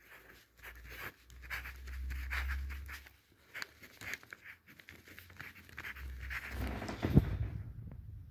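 Ballpoint pen scratching across paper in short, irregular strokes as large letters are written, with low handling rumble and a sharp knock about seven seconds in.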